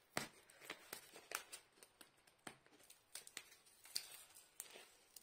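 Faint, irregular clicks and scratches of fingers picking at the tape that holds a rolled diamond-painting canvas closed.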